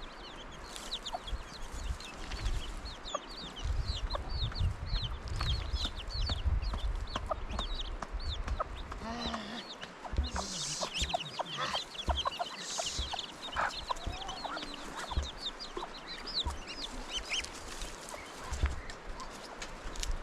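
Chickens clucking, with many quick high chirps throughout and a low rumble in the first half.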